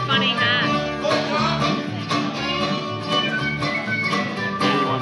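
Acoustic string band playing an old-time fiddle tune live: fiddle and tin whistle carrying the melody over strummed guitars, mandolin and upright bass.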